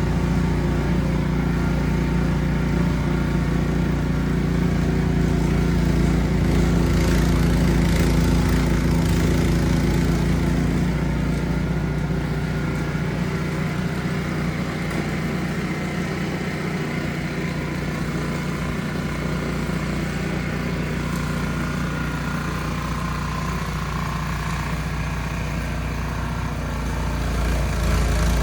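Ariens Platinum SHO 24-inch two-stage snow blower's engine running steadily under load while throwing snow. It is a little quieter through the second half and picks up again near the end.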